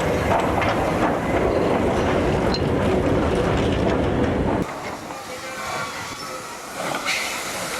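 Steam train running on the track: a loud, steady rumble and clatter of wheels and cars. A little over halfway through it cuts off suddenly to a much quieter sound with a few scattered clanks.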